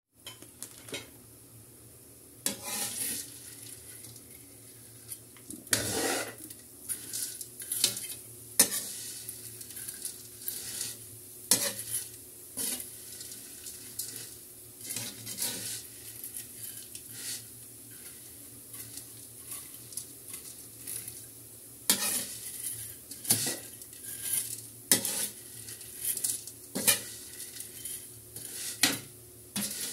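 A utensil stirring and tossing pancit bato noodles in a steel wok, with irregular scrapes and clacks against the metal over a steady faint sizzle of frying.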